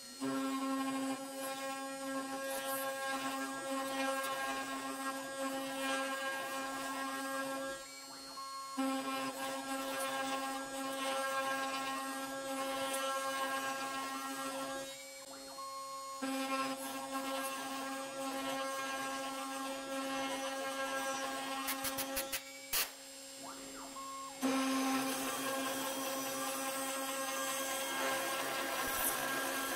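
CNC router spindle and end mill cutting into the end grain of a yew log: a steady whine under the rasp of chips being cut. The sound drops away briefly about a third of the way in and again about halfway, then dips for a couple of seconds near the end before the cutting resumes.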